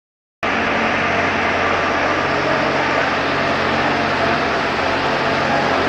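Underground mining loader (LHD scooptram) engine running steadily, a low hum under a dense mechanical hiss, cutting in abruptly about half a second in.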